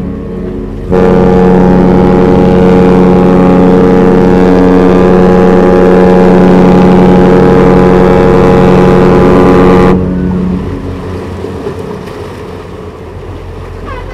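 Harmony of the Seas' deep ship's horn. One blast ends just as the clip opens, then a long, steady blast starts about a second in and cuts off suddenly near ten seconds, leaving a quieter low background rumble.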